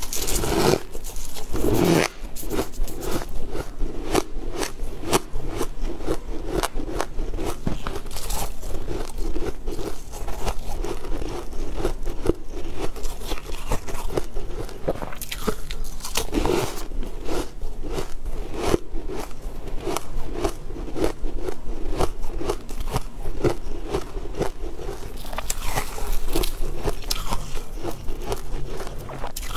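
Close-up biting and crunching of frosty frozen blocks, a steady run of crisp crunches and chews.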